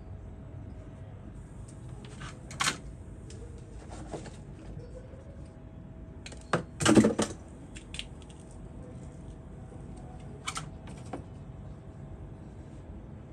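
A few sharp clicks and knocks of small tools and objects handled at a workbench, loudest in a short cluster about seven seconds in, over a steady low workshop hum.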